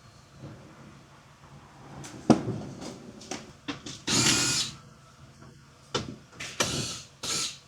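A power tool run in several short bursts, the longest just over half a second, about four seconds in.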